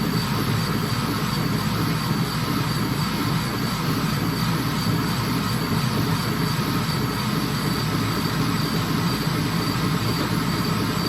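CO2 laser engraver running while engraving bamboo: a steady mechanical hum and rumble from the machine, with a faint high steady whine over it.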